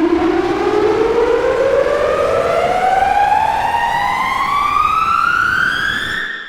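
Trailer riser sound effect: a loud tone with overtones gliding steadily upward in pitch over a rushing noise bed. It stops shortly before the end with a brief fade.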